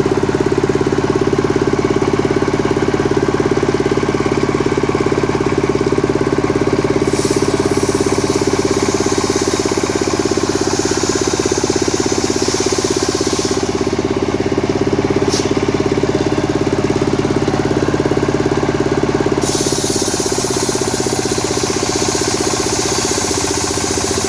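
Stihl MS 382 two-stroke chainsaw running steadily, with a high hiss coming in twice: about seven seconds in for several seconds, and again from about nineteen seconds in.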